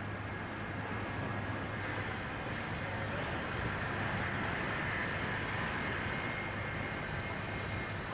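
Heavy machinery running steadily, a low hum under an even mechanical noise.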